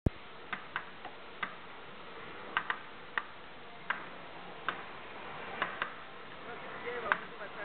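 A dozen or so sharp clicks at uneven intervals from a shooting game being played, as players shoot at small gears on the floor, over a steady background hiss.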